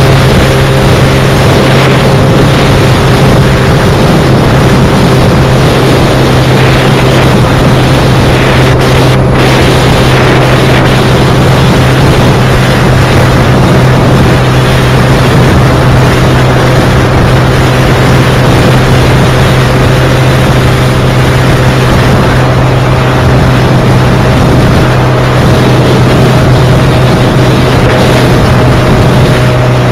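Wind buffeting a handlebar-mounted camera's microphone at highway speed, loud and steady, over the motorcycle engine's constant hum at cruise.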